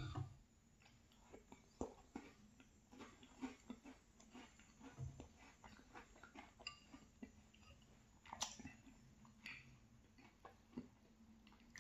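Faint chewing of a yogurt-soaked cookie: soft, irregular wet mouth clicks, with a few sharper clicks.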